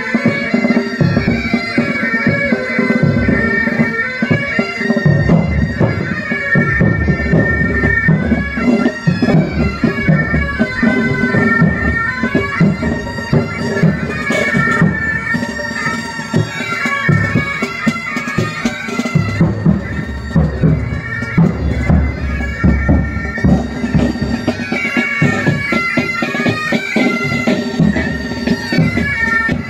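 Military pipe band playing a march: bagpipes sounding a melody over their steady drone, with drums beating time underneath.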